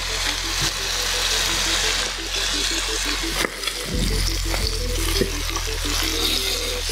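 Chicken pieces sizzling in a frying pan, a steady hiss, over background music with a repeating bass line.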